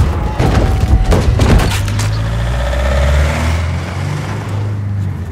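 Van engine running with a steady low drone, with a cluster of heavy thumps and knocks in the first two seconds.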